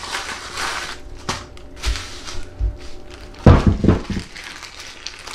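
Plastic packaging bag crinkling as a small parts kit is opened and emptied by hand, with a few dull knocks and a loud cluster of thuds about three and a half seconds in as the parts land on a wooden table.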